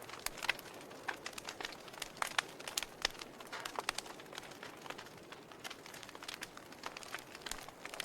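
Wood fire burning in a fireplace, crackling with irregular sharp pops and snaps over a soft hiss.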